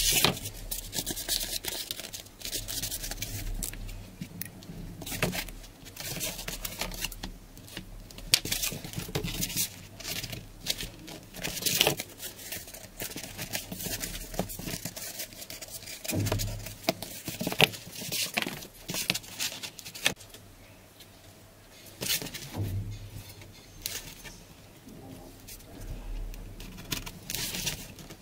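Cardboard and a metal ruler being handled on a tabletop: irregular rustles, taps and scrapes as the cardboard strip is measured and folded, with a few dull thumps.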